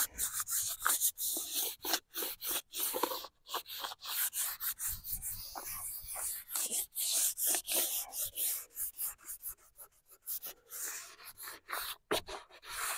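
Fine 600-grit sanding sponge rubbed by hand over the surface of a charred, wire-brushed walnut slab: quick, uneven scratchy strokes with short pauses, smoothing off rough, splintery spots and leftover charcoal.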